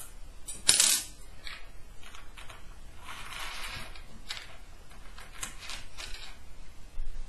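Small metal hardware (screws, washers and ball bearings) clicking and clattering against each other and a wooden tabletop as it is handled and fitted together, with a sharper clatter about a second in and a longer rattle around the middle.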